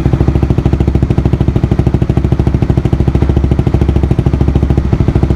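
Honda CBR150R's single-cylinder engine idling steadily through an aftermarket Akrapovic muffler with its silencer insert still fitted, heard close to the exhaust outlet as a fast, even exhaust pulse.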